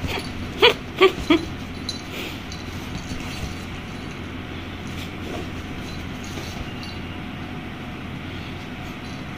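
A small dog gives three quick yaps, a fraction of a second apart, about a second in, over a steady background hum.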